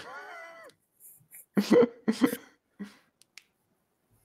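Laughter: a wavering, high-pitched laugh at the start, then a few short bursts of laughing about two seconds in.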